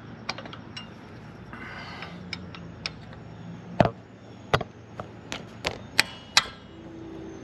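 Steel Allen wrenches clinking and tapping against each other and against metal while the right size is sought: a string of sharp, irregular clicks, the loudest about four seconds in and near six seconds.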